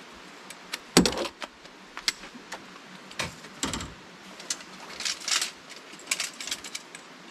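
Metal awning poles clicking and clinking as they are handled and their telescopic legs are extended. There is a louder knock about a second in and two duller thumps a few seconds later, with the rustle of a fabric carry bag.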